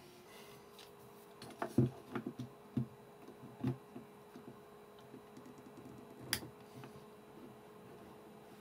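Mole grips (locking pliers) clicking and knocking against the camera's chassis while gripping and turning a stripped, cross-threaded screw: a few separate sharp clicks spread over several seconds, the sharpest about six seconds in.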